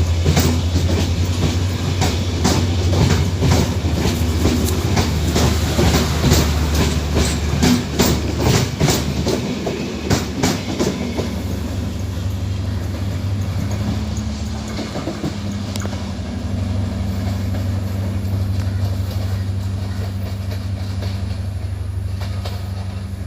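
Sri Lanka Railways Class S13 diesel train passing: wheels clicking over rail joints in quick, irregular bunches for about the first ten seconds, then a steady low engine drone that slowly fades toward the end.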